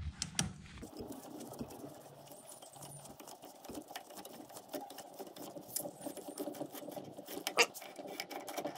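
Screw-type valve spring compressor being loosened off a valve spring on a BMW N52 cylinder head: a fast, continuous run of small metallic clicks and rattles, with one sharper clack near the end.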